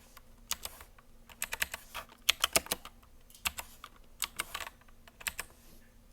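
Typing on a Royal Kludge RK71 mechanical keyboard with clicky blue switches: irregular runs of sharp key clicks, with short pauses between the runs.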